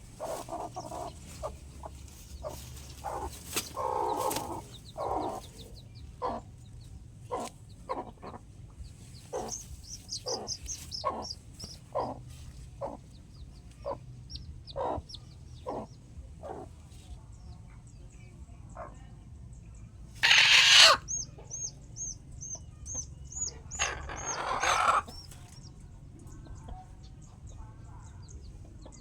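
Chickens clucking in a steady scatter of short calls, with a loud long squawk about twenty seconds in and a rooster crowing a few seconds later. A run of quick, high chirps comes between the two long calls.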